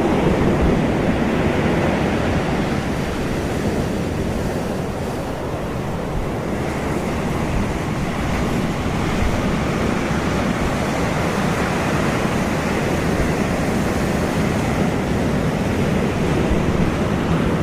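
Steady rush of ocean surf and wind, with wind buffeting the microphone; it eases slightly about five seconds in, then builds again.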